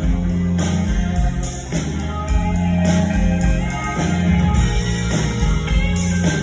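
Live country band playing an instrumental passage with no singing: guitar over a steady bass line and drums with a regular cymbal beat.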